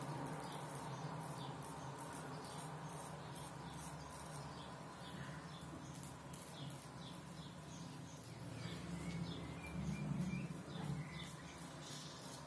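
Kamisori straight razor scraping through lathered stubble in short, quick strokes, each a crisp crackle, over a steady low hum.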